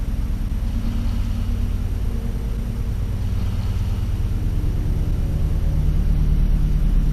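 Boat's outboard motor running steadily at low revs, a low hum that grows a little louder near the end.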